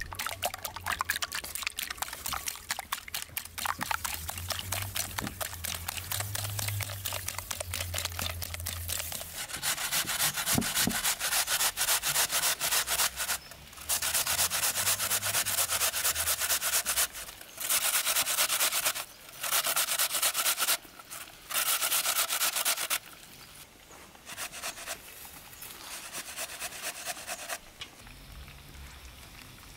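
Rapid, repeated scraping strokes of hand food preparation, coming in loud bursts separated by short pauses and dying away near the end.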